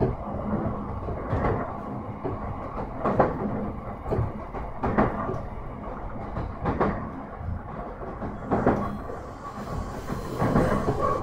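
Running sound inside a JR East E131 series 1000 subseries electric train under way: a steady rumble of wheels and motors, with the wheels clicking over rail joints every second or two.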